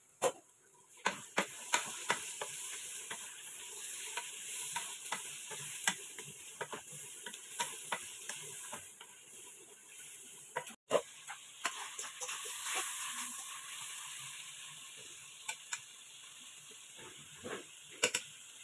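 Pieces of sheep liver sizzling in sauce in a frying pan while a wooden spoon stirs them, with repeated irregular knocks of the spoon against the pan.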